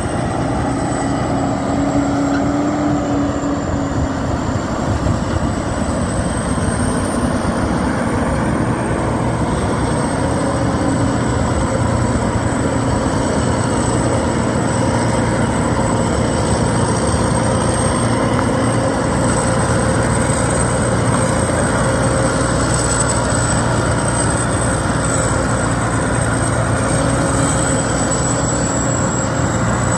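Rice combine harvester's engine running steadily under load while it unloads grain into a truck, with a thin high whine over it.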